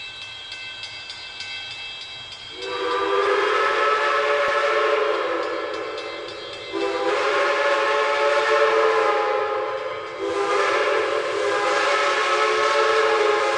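Multi-chime steam locomotive whistle blowing three long blasts, each a chord of several notes sounding together, after a fainter, higher whistle tone at the start.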